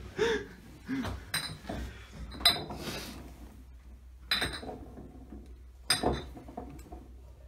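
Empty glass beer bottles clinking as they are knocked together while someone climbs past them: a handful of separate sharp, ringing clinks a second or two apart.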